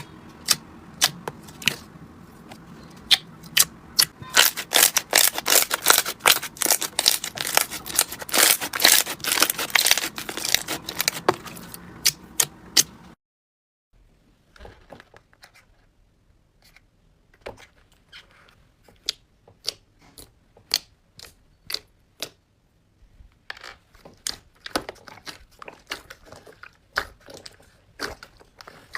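Slime being worked by hand, giving a dense run of rapid sharp clicks and pops, then after a short break about thirteen seconds in, a sparser run of clicks.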